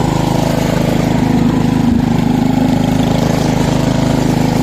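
Cub Cadet 126 garden tractor's 12-horsepower single-cylinder engine running steadily, an engine the owner says needs its carburetor rebuilt.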